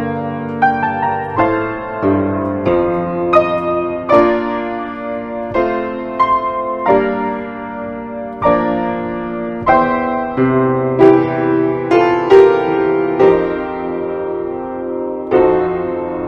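Solo piano playing a slow, gentle piece in chords, a new note or chord struck about every second.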